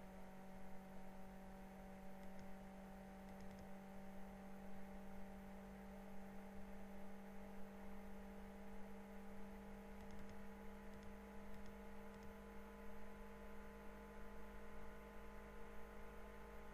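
Faint steady electrical hum, one low tone with several fainter steady tones above it, with a few very faint clicks.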